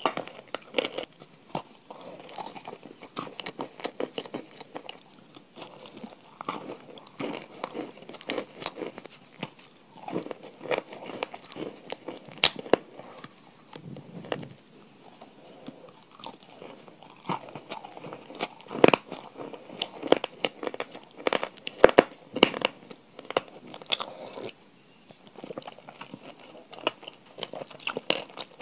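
Close-miked crunchy eating: irregular sharp crunches from biting and chewing crisp food, with the loudest bites about two-thirds of the way in and a short lull near the end.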